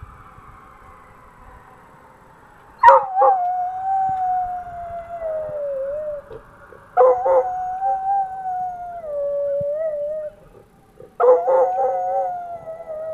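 Coonhound howling at fire trucks: three long howls about four seconds apart. Each opens sharply, then holds a wavering note that slowly falls in pitch.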